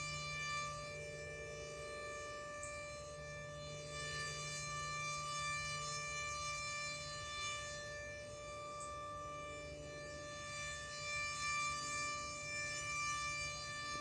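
Super Sirex outdoor warning siren sounding its test at full speed, holding one steady pitch with a stack of overtones. The level only wavers a little instead of rising and falling as a rotating horn would, because the siren's rotator is broken.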